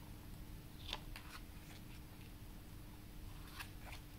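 Paper pages of a booklet being turned by hand: a few soft rustles and flicks of paper, the sharpest about a second in, over a faint steady hum.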